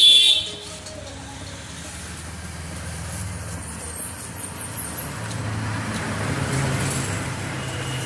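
Steady road-traffic noise, a low rumble with hiss, slowly growing louder, after a sudden loud burst right at the start.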